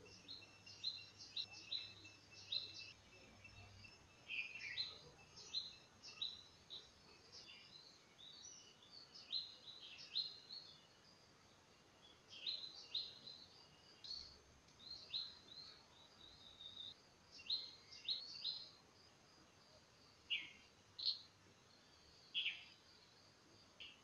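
Yellow-billed babblers calling: a busy run of short, high chirps and quick downward-sweeping notes. The calls thin out to a few separate ones in the second half.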